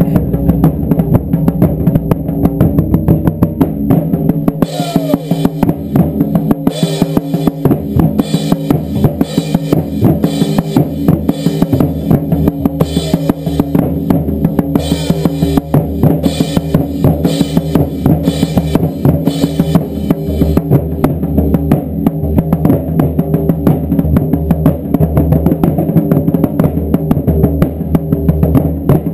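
Taiko drums played in a fast, continuous pounding beat. From about five seconds in to about twenty seconds in, a brighter, crisper layer of strokes joins in short repeated bursts, then drops out.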